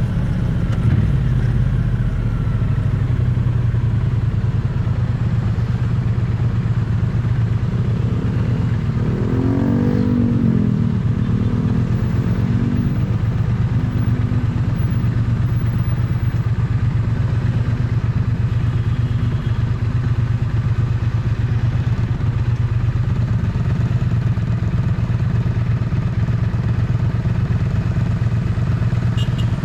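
Triumph Bonneville T100 parallel-twin engine and exhaust running steadily on the move, picked up close to the exhaust. About a third of the way through, a brief tone rises and falls over it.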